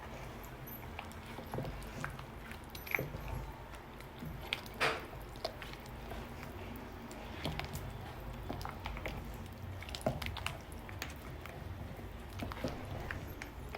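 Cooking sounds: scattered soft clicks and taps of utensils and ingredients being handled, over a steady low hum.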